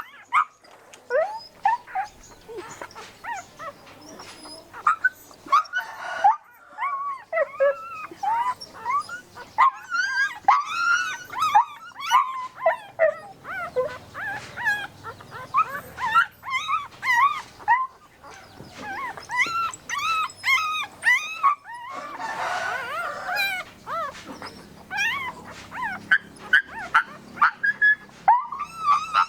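Puppies whimpering and yipping in a rapid string of short, high cries that rise and fall, often overlapping one another.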